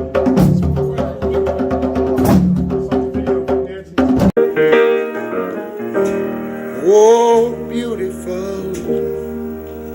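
Music: a busy rhythmic passage with drums over held tones cuts off abruptly about four seconds in. Sustained keyboard chords follow, with a short wordless vocal run near the middle.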